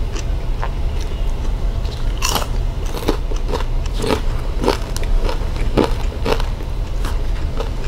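Close-miked crunchy chewing: crisp fried dried fish being bitten and chewed, with sharp crunches about twice a second.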